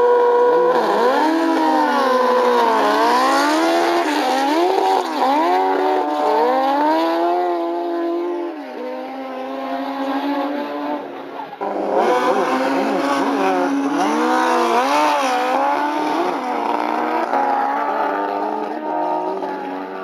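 Drag-racing motorcycle engines at full throttle, the pitch climbing and then dropping sharply again and again as the bikes shift up through the gears. About twelve seconds in a fresh run starts and the same climbing and dropping goes on.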